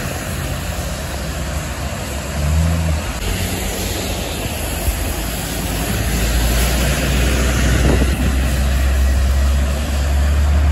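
City transit bus driving past and away on a wet road: a low steady engine drone that swells about halfway through, over the hiss of tyres on wet pavement.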